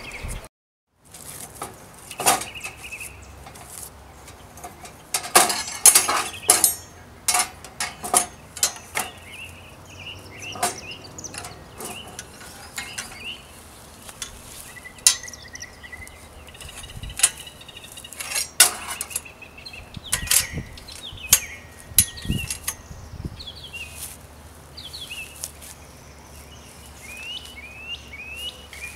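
Irregular metal clanks and rattles of a folding steel grill stand being unfolded and handled, loudest a few seconds in. Birds chirp in the background.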